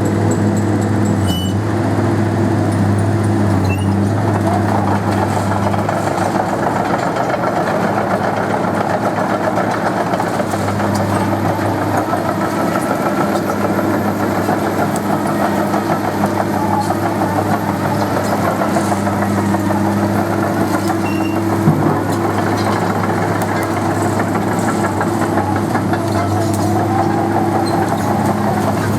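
Komatsu PC200 excavator's diesel engine running steadily at a constant speed, with a busier mid-pitched working noise over it that swells and eases.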